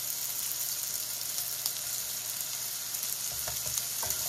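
Delicata squash slices and freshly added garlic sizzling in oil in a skillet: a steady frying hiss, with a few light spatula knocks near the end.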